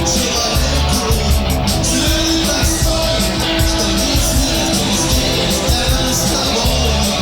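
Rock band recording: electric guitars, bass guitar and drums playing at a steady tempo, with regular cymbal strokes over a steady bass line.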